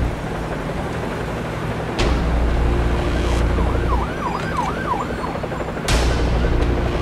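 An emergency-vehicle siren in fast yelp mode, rising and falling several times a second for about a second and a half in the middle. Over a deep rumble, a sudden boom comes about two seconds in and another near the end.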